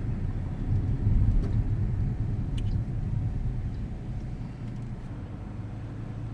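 A car driving, with a steady low rumble of engine and road noise that swells about a second in and then eases off.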